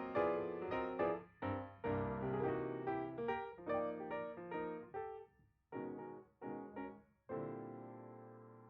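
Background piano music: rhythmic chords that break into a few short chords and end on one long held chord that fades away.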